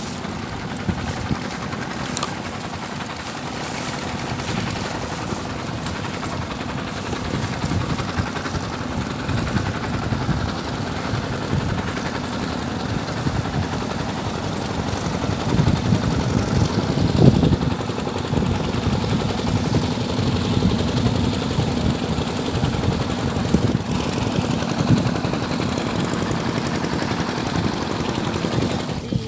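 Small boat's motor running steadily, a rapid low pulsing that swells a little in the middle.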